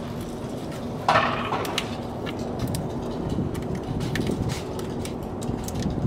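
Small clicks and taps of a screwdriver and fingers working the plastic plug of a car starter's solenoid connector, with one louder, short scrape about a second in, over a steady low hum.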